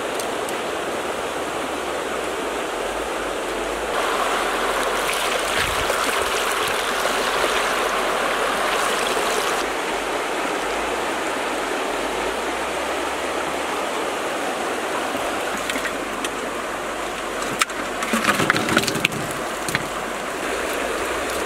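Steady rushing of water, louder for several seconds about a quarter of the way in as water drains from a clay pot of boiled eggs onto the ground. Near the end, a short clatter of knocks as the boiled eggs tumble out of the pot into a wicker basket.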